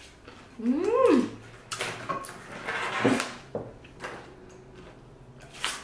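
A woman's short wordless "ooh" that rises and falls in pitch about a second in, followed by a few short, breathy puffs of air.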